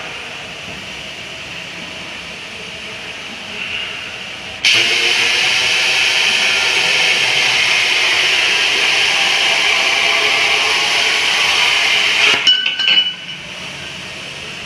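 CNC pipe-cutting machine cutting through a metal pipe: it starts abruptly a little over four seconds in, holds a loud steady hiss-like cutting noise for about eight seconds, then stops. A few sharp metallic clinks follow as the cut ends.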